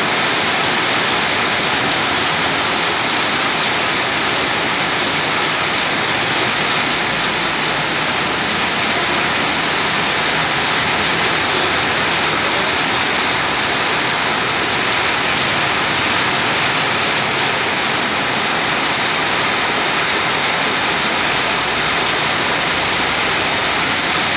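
Heavy rain pouring down onto a wet road: a loud, steady hiss that holds unchanged throughout.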